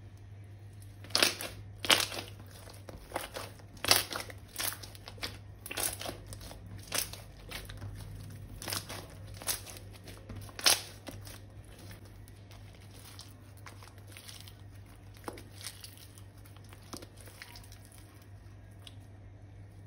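A run of sharp crinkling and crackling handling sounds, dense and loud through the first half and then thinning to a few faint crackles, over a steady low hum.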